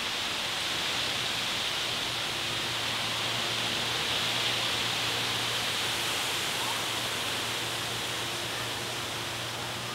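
Steady rustle of wind through leafy trees, swelling a little midway and easing off again, over a faint low hum.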